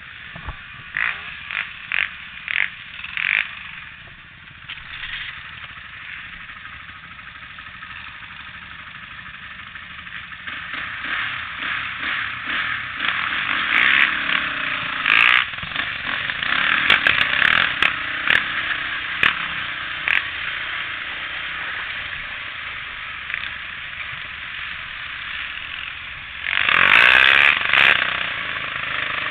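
A quad (ATV) engine running as the machine rides over a bumpy trail, with knocks and rattles from the ride in the first few seconds. The sound gets much louder about three seconds before the end.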